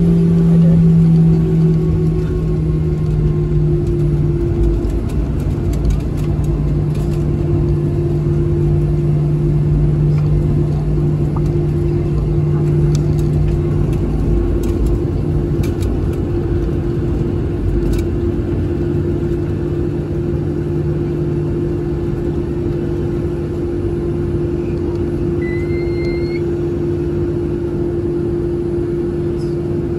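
Cabin noise of a Boeing 737-700 with its CFM56-7B jet engines running: a steady drone with a low hum over a constant rumble. The pitch of the hum eases down slightly in the first few seconds, then holds.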